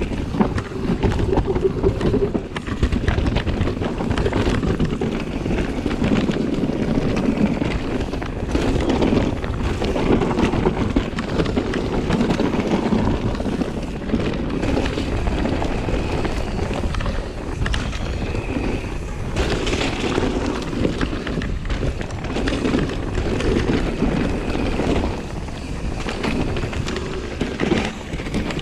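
Trek Slash full-suspension mountain bike ridden fast down a rocky dirt trail: tyres rolling and skidding over dirt and stones, with frequent knocks and rattles from the bike, and wind buffeting the camera microphone.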